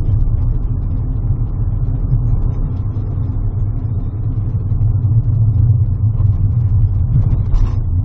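Car engine and road rumble heard from inside the cabin while driving: a steady low drone.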